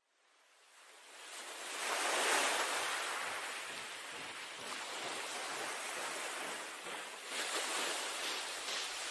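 A steady rushing hiss, like air blowing, fading in over the first two seconds and then holding steady.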